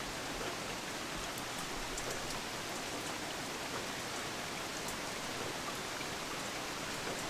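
Steady rain falling, with faint scattered drop ticks.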